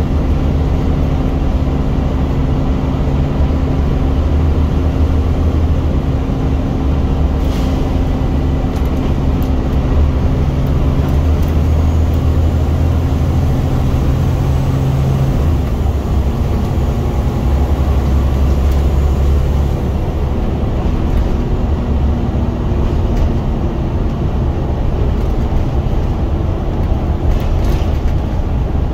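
Scania single-deck bus's diesel engine labouring hard under way, heard from inside the saloon as a loud low drone over road noise. The engine note shifts about halfway through.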